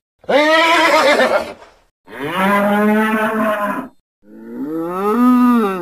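Three long, moo-like animal calls, each about a second and a half with short gaps between. The last call rises and then falls in pitch. This is a sound-effect call for an imagined creature.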